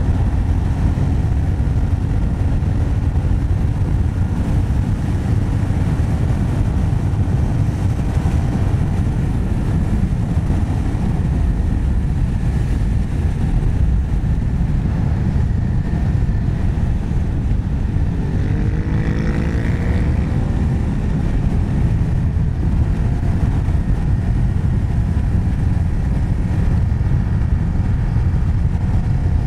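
Yamaha XT600's single-cylinder four-stroke engine running under way at road speed, buried in heavy wind noise on the microphone; about two-thirds of the way in, the revs climb as the bike accelerates.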